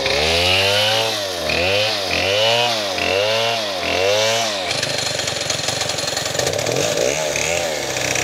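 Two-stroke chainsaw revved up and down in quick pulses, about one every half second to second, then held at a steadier, rougher speed for a few seconds, with a couple more quick revs near the end.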